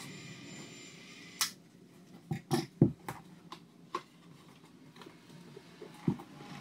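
Cordless caulking gun's motor whining steadily as it drives construction adhesive onto a pine trim board, stopping with a click about a second and a half in. Then a run of wooden knocks and taps as the board is lifted and set against the base of the cabinet, the loudest near three seconds in.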